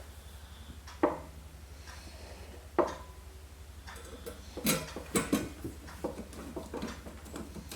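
Metal knocks and clatters of a hard drive and its screws being handled and fitted into a computer case's drive bay: two single knocks, then a busier run of clicks and rattles in the second half, over a steady low hum.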